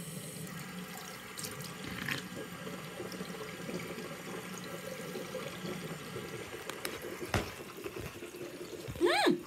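Bathroom sink tap running steadily while a toothbrush is rinsed under it, with a click about seven seconds in and a short rising-then-falling vocal sound near the end.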